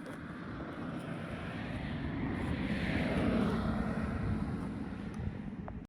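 A passing engine, swelling to its loudest about three seconds in and falling in pitch as it fades, then cut off abruptly.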